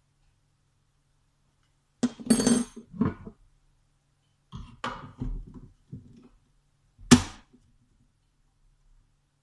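Kitchen items being handled, with scattered clatters and knocks and one sharp knock about seven seconds in.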